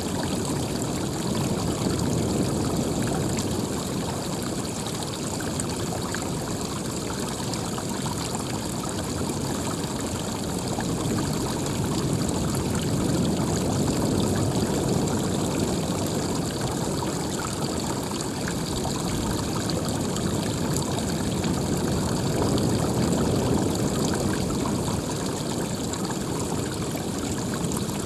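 Running water: a steady, continuous rush whose loudness swells and eases slowly.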